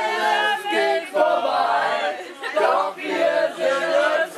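A group of amateur voices singing together unaccompanied, a birthday song sung from lyric sheets.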